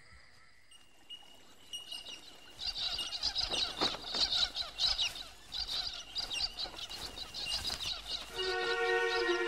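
A flock of cockatoos squawking and chattering, many calls overlapping, beginning about two seconds in. Near the end a held musical chord comes in under the calls.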